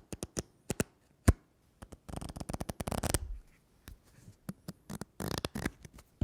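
Paper being torn: scattered sharp crackles and snaps, then a long rip about two seconds in lasting over a second, and a second, shorter rip near the end.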